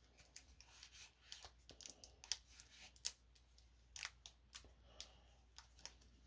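Pokémon trading cards being flipped through by hand: a quiet, irregular string of sharp card snaps and slides, with a few louder flicks midway.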